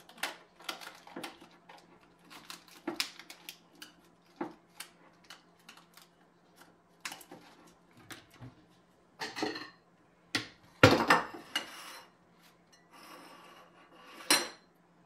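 Paper coffee filter crinkling and rustling as it is pressed around the mouth of a glass mason jar and a rubber band is stretched over it, with many small clicks and a few sharp knocks of glass on the countertop, the loudest a little past halfway.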